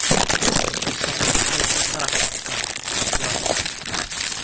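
Metallic foil wrapper of a chocolate Easter egg crinkling and crackling as it is pulled open by hand, a dense run of crackles.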